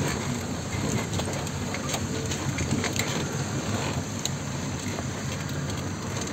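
4x4 vehicle's engine running low and steady at crawling speed as its tyres work through deep mud, with scattered clicks throughout.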